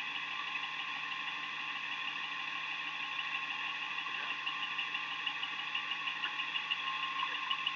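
Steady hum and hiss of an idling police car heard through its dash-camera audio, with a fast, even flutter running through it.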